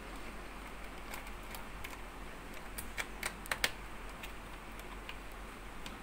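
Small, sharp clicks and ticks of a screwdriver working screws out of a laptop's plastic bottom case, with a quick run of louder clicks a little past the middle.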